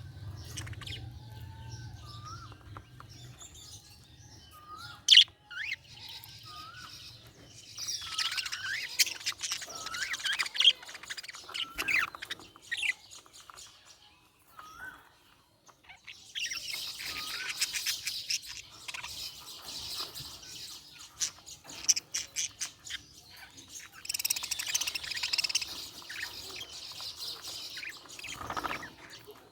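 Budgerigar chirping and warbling, in bursts of fast high chatter with short rising whistles in between.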